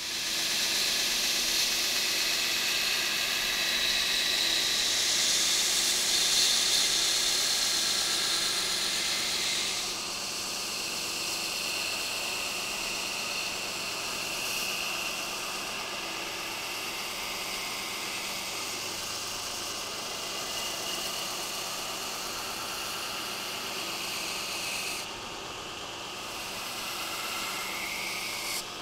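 Belt grinder running with a steel knife blade held against the abrasive belt, giving a steady grinding hiss. It is louder for about the first ten seconds, then settles to a slightly lower, even hiss.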